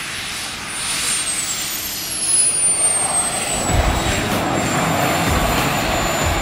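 RC model jet's gas turbine running: a high turbine whine falls in pitch over about two seconds and then holds, over a roar that grows louder from about three seconds in.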